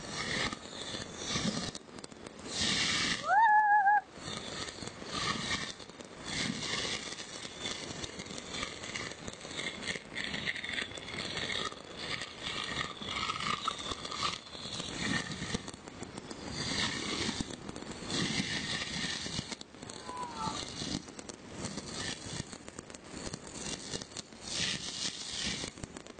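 Many fireworks and firecrackers crackling and popping without a break. A loud whistle rises and then wavers about three and a half seconds in, and a shorter, fainter whistle comes near twenty seconds.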